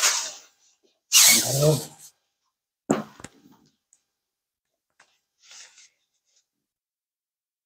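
Sounds of a hands-on chiropractic adjustment. Two breathy bursts, the louder one about a second in, like forceful breaths, are followed by a couple of sharp clicks about three seconds in.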